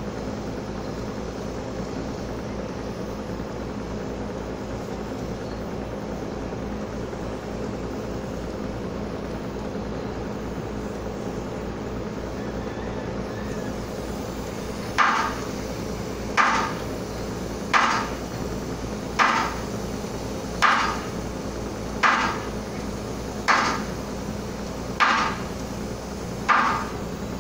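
Steady low hum of the cargo ship's engine machinery. About halfway through, hammering begins: sharp, evenly paced strikes roughly every second and a half, nine in all, louder than the hum.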